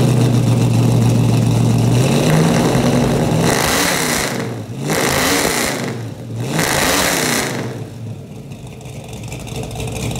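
1970 Ford Mustang Mach 1's V8 running through its dual exhaust. It is first held at a steady fast idle, then stepped up in speed, then blipped about three times, the pitch rising and falling each time. Near the end it drops back to a quieter idle.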